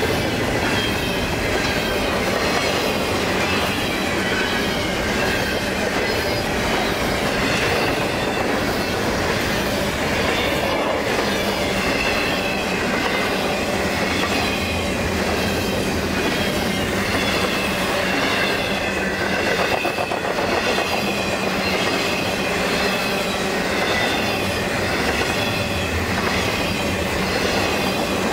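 Double-stack intermodal freight train rolling past: a steady rumble of steel wheels on rail with a wavering high wheel squeal and scattered wheel clicks.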